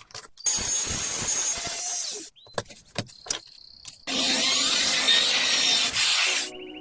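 Power-tool work on a car wheel: two stretches of loud hissing, grinding-like noise, each about two seconds long, with clicks and a short steady whine in the gap between them.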